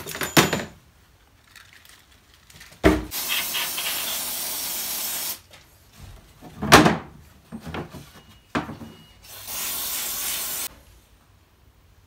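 Two steady bursts of spraying hiss with sudden starts and stops, the first about two and a half seconds long a few seconds in and the second shorter near the end, with clacks of handling between them.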